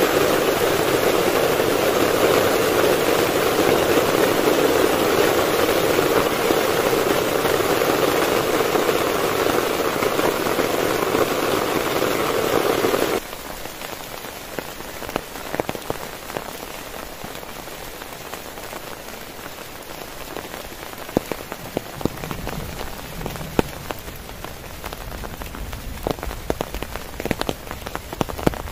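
Heavy rain falling hard on a tent. About halfway through it cuts suddenly to lighter rain, with separate drops ticking on the fabric.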